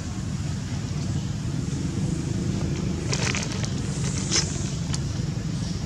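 Steady low outdoor rumble with a few short crackles of dry leaves about three seconds in and again about a second later.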